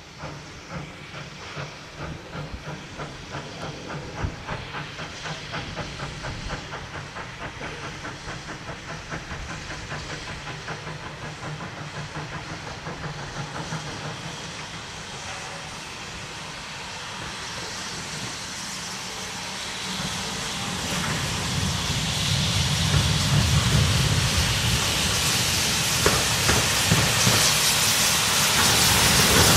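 LB&SCR E4 class 0-6-2 tank steam locomotive working under steam, its exhaust beating in a regular chuff as it approaches. The sound grows steadily louder, and a loud hiss of steam takes over in the second half as it draws near.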